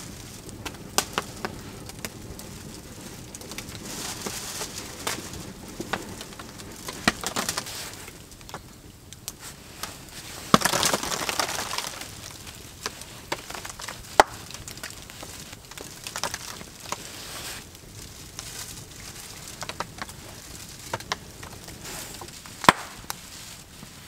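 Knife carving a spit-roasted rabbit on a wooden board: scattered clicks and taps of the blade against the meat, bone and wood, with a louder stretch of crunching and tearing about halfway through.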